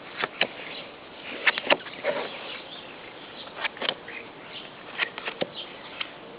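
Foil Yu-Gi-Oh booster pack wrapper crinkling and being torn open by hand, an irregular scatter of sharp crackles and snaps.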